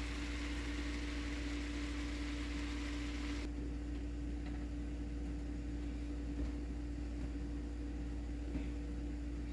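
Cabbage steaming in a stainless frying pan on an electric stove, with a soft hiss of steam and sizzle that drops off sharply about a third of the way in as the glass lid goes on. A steady low hum runs underneath.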